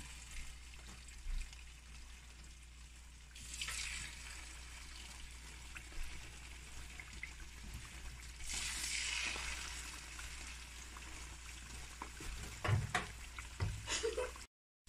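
Battered chicken legs deep-frying in hot oil, a steady bubbling sizzle that swells louder about four seconds in and again about nine seconds in as more legs go into the oil. A few short knocks near the end, then the sound cuts off suddenly just before the end.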